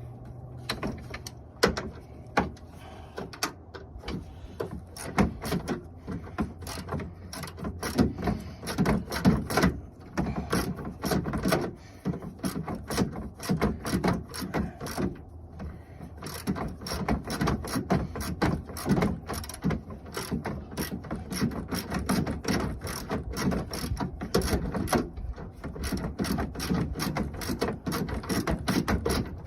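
Hand ratchet wrench clicking in quick runs with short pauses, turning fasteners on a 2008 Jeep Patriot's radiator fan assembly.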